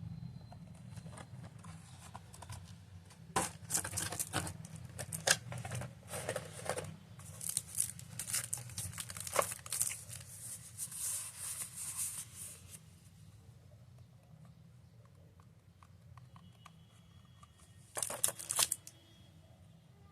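Packaging being crinkled and torn open in irregular bursts, then a short burst near the end, over a low steady hum.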